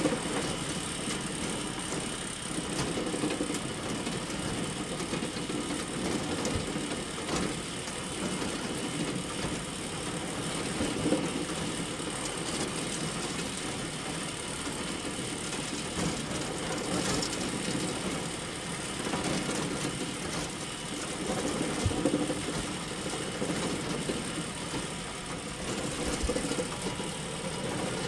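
Hay bale elevator, a chain-driven farm conveyor, running steadily. It gives an even mechanical rattle with a few louder knocks scattered through it.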